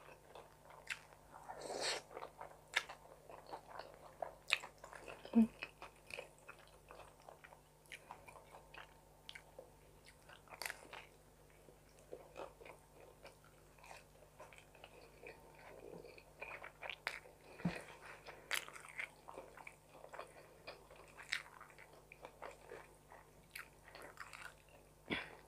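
Close-miked eating sounds: a person chewing and biting through forkfuls of carbonara pasta and a slice of homemade corn-topped pizza, a steady run of short mouth clicks with a few louder ones.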